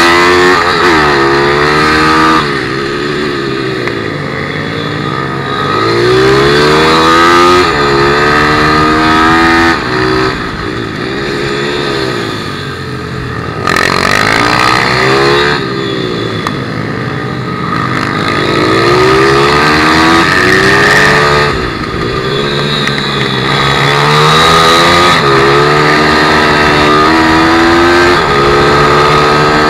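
160cc single-cylinder four-stroke pit bike engine heard from on board while racing, its revs climbing and dropping again and again as it is accelerated out of corners and backed off into them, with wind rushing past.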